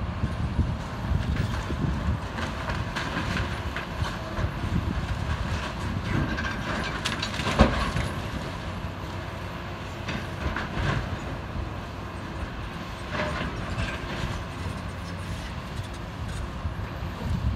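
Kobelco excavator demolishing a wood-framed building: a steady engine rumble with the crunching and crackling of splintering timber and falling debris, and one loud crack about seven and a half seconds in.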